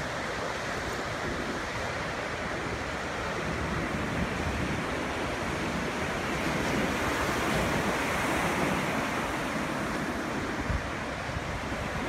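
Pacific Ocean surf crashing on a sand beach, a steady wash of breaking waves that swells to its loudest a little past the middle. Wind rumbles on the microphone.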